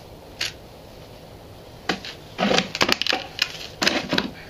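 Clicks, clacks and rattles of hard objects being handled: a single click near the start, then a quick, irregular run of sharp clacks from about two seconds in until just before the end.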